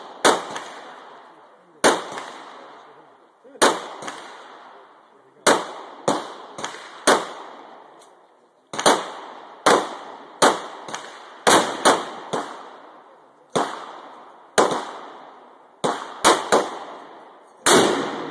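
A string of about twenty rifle shots from a Barrett .50 BMG semi-automatic rifle, irregularly spaced and often less than a second apart. Each is a sharp crack trailing off in a long echo, some louder than others.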